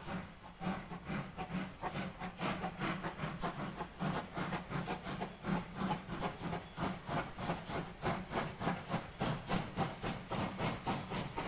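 Two coupled 2-10-0 steam locomotives, German class 52 no. 52 8079 and Polish Ty42-107, hauling a train with exhaust chuffs at about four to five beats a second, quickening slightly. Steam hisses from the open cylinder drain cocks.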